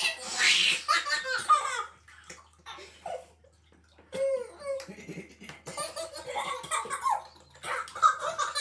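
Two babies laughing and giggling at each other in a bathtub, in short bursts, with a lull of about two seconds near the middle.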